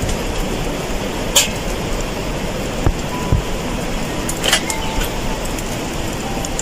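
Steady rumbling noise with a few sharp cracks from the charcoal fire under lamb skewers in a tandoor, the loudest about a second and a half in and again near four and a half seconds.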